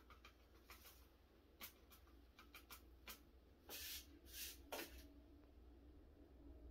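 Quiet, faint rustles and light clicks from hands handling tiny seeds, a seed packet and a small seed container. A few short brushing rustles come between about three and a half and five seconds in.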